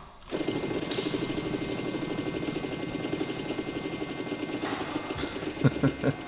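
Lamborghini Countach LP400's V12 engine idling with a fast, even pulse, with a few louder low pulses near the end.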